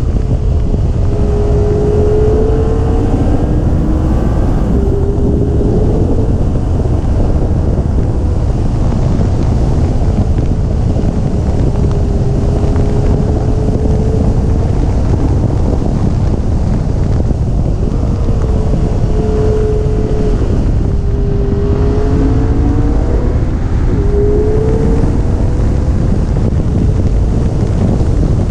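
Heavy wind buffeting on an exterior camera microphone at track speed, with the McLaren 650S's twin-turbo V8 faintly underneath, its engine note climbing and dropping back several times.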